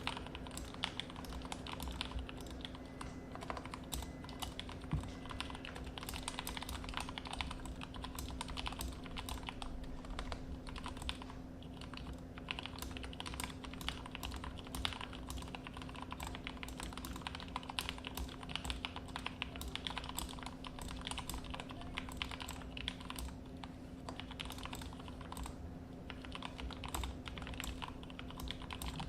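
Continuous typing on a custom 60% mechanical keyboard with hand-lubed Gateron Yellow linear switches, mounted without a plate in a 3D-printed case: many quick, uneven keystroke clacks, with a low steady hum underneath.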